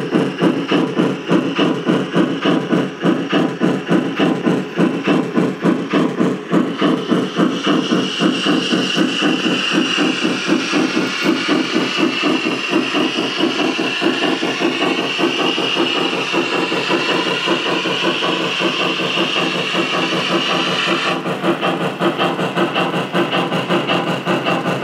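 Gauge 1 model of a BR 44 steam locomotive running, with a fast, steady chuffing. A hiss joins in about seven seconds in and cuts off suddenly about twenty-one seconds in.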